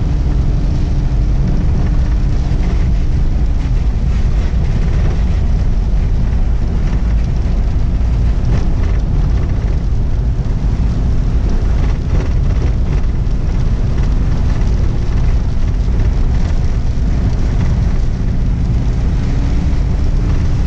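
Vehicle engine running and tyres rumbling on a wet dirt road, heard from inside the cabin. The engine note drops a little about four seconds in and rises again near the end.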